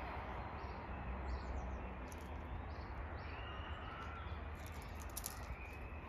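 Faint short bird chirps, several in the first half, over a steady outdoor background rumble, with a few sharp clicks about five seconds in.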